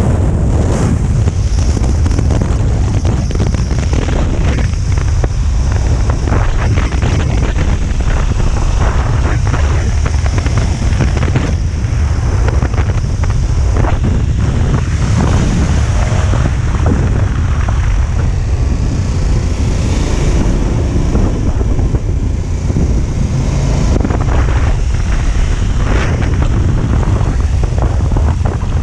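Wind rushing over the microphone of a 2021 KTM 1290 Super Adventure riding at road speed, loud and continuous, with the bike's V-twin engine running underneath.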